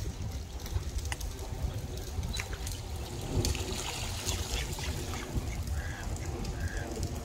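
Lake water splashing and trickling, with wind rumbling on the microphone. Near the end come a few short waterbird calls, about once a second.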